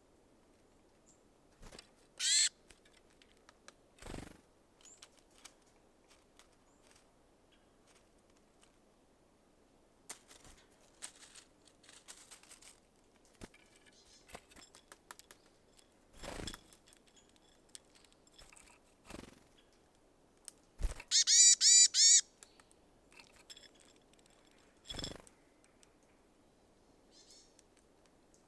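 Small birds at a seed feeder: a short call about two seconds in, then a quick run of about five loud, high calls about three quarters of the way through. Soft knocks and taps come now and then between the calls.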